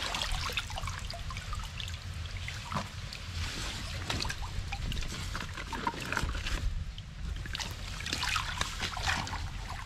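Shallow water trickling and splashing, with scattered small clicks and crackles throughout.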